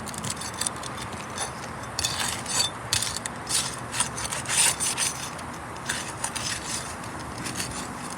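A roofing shingle being worked loose and pulled out from under the courses above it: irregular rough scraping and clicking, busiest through the middle.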